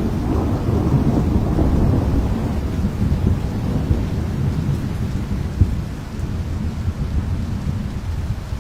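Monsoon storm noise: a continuous low rumble that eases slightly in the second half, with a brief sharp knock about five and a half seconds in.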